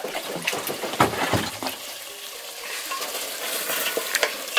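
Knocks and clinks of a metal cooking pot being handled, then goat meat and tomatoes sizzling in the pot as they are stirred.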